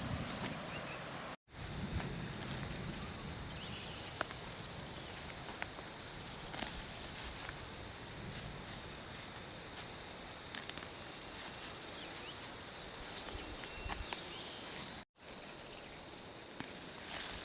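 Outdoor rural ambience: insects keep up a steady high-pitched drone, with scattered light clicks and rustles over it. The sound cuts out completely twice, briefly.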